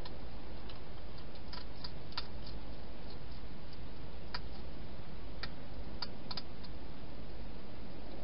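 Wild hedgehog eating inside a plastic feeding box: faint, irregular clicks and crunches over a steady hiss.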